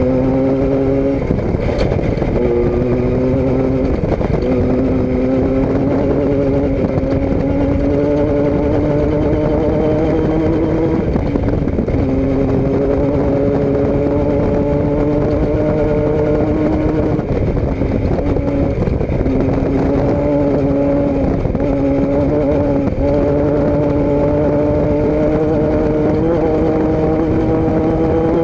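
A vehicle engine running steadily under way, its pitch slowly creeping up with brief dips several times.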